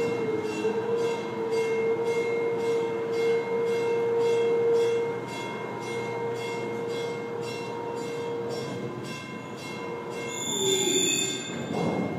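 Bascule drawbridge machinery running as the leaf and its concrete counterweight swing: a steady, high metallic squeal with a faint regular ticking. Near the end the squeal dips in pitch and a higher screech joins it.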